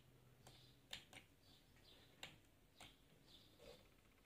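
Near silence: faint room tone with a few soft, scattered clicks, about five in all.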